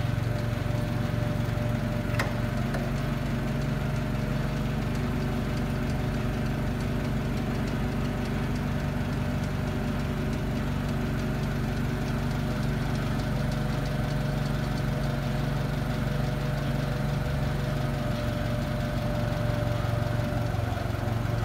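Forklift engine running steadily as the mast holds a pallet raised high, with a steady higher whine above the engine that stops near the end.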